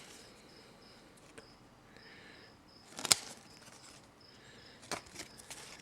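Trading cards being handled in a quiet pause: faint rustling, a sharp click about three seconds in and a smaller click near five seconds, as cards are flipped and set down.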